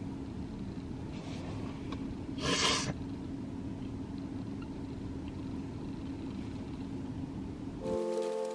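Steady low rumble of a car cabin on the move, with a faint steady hum and one brief rush of noise about two and a half seconds in. Near the end the rumble cuts out and background music begins.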